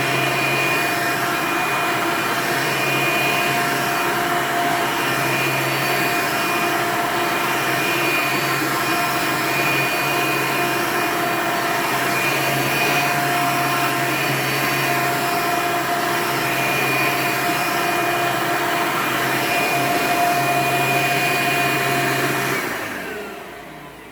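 Hoover Elite U4717-930 upright vacuum cleaner running steadily with a whine, then switched off about two seconds before the end, its pitch falling as the motor winds down.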